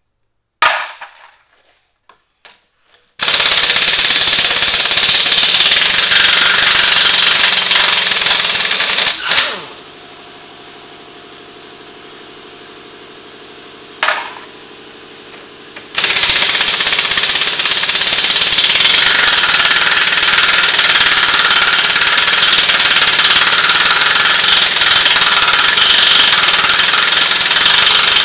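Impact wrench hammering on a truck's front-wheel lug nuts. A few clicks come first, then long spells of rapid hammering. The hammering stops for about six seconds partway through, leaving a quieter steady hum and one click.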